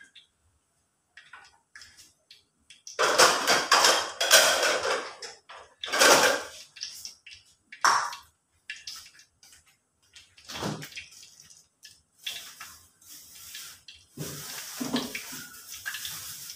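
Pot of soup boiling on the stove, bubbling and sputtering in irregular bursts, loudest about three to five seconds in and again near the end.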